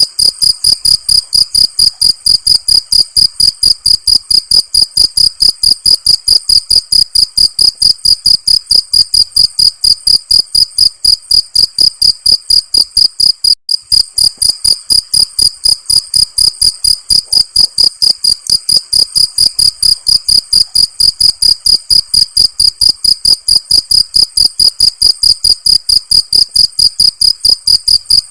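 A cricket chirping loud and steady: an even train of high-pitched chirps, about three a second, with a momentary break about halfway through.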